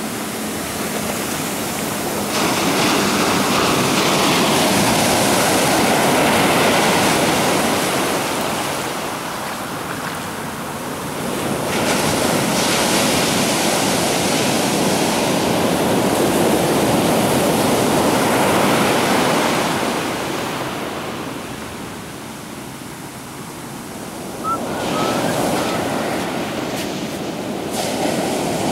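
Ocean waves breaking and washing in: a loud rush of surf that swells and eases in long surges, two big ones and a third building near the end.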